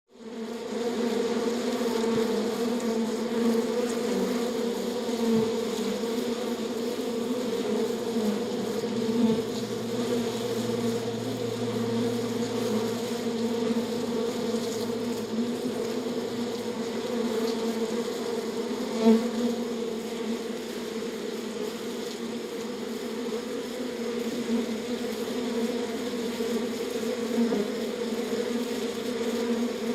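Beehive: many bees buzzing together in a steady, dense hum that fades in at the start and holds throughout.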